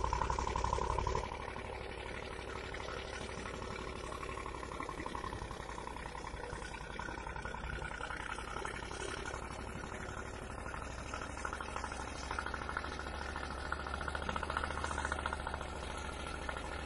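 A vehicle engine idling steadily, with a constant low rumble under the hiss of fast-flowing floodwater.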